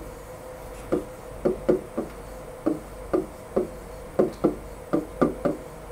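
Stylus tapping and knocking against the glass of an interactive whiteboard as letters are written: about a dozen dull taps at uneven intervals, one for each pen stroke.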